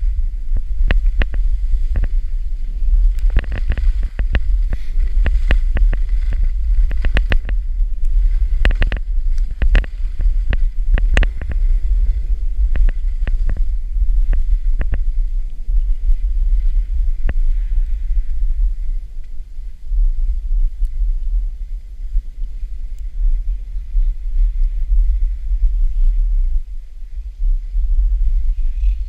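Skis scraping and clattering on packed snow during a downhill run, over a steady low rumble of wind buffeting the camera microphone. The sharp ski scrapes come thick and fast for about the first half, then thin out and the wind rumble is left.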